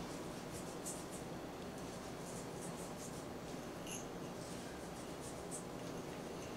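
Faint, scattered scratchy rustles of granulated cinnamon sugar being pinched from a small ramekin and sprinkled over a raw pie crust.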